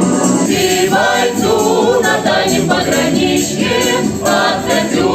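Music between sung verses: several voices or instruments in harmony play the melody without words.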